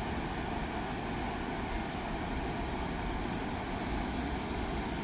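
Steady rushing of floodwater pouring through a dam's open spillway gates.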